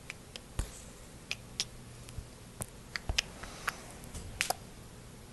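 Pet rabbit crunching oats: irregular sharp crunches and clicks, about fifteen in all, bunching together in the second half.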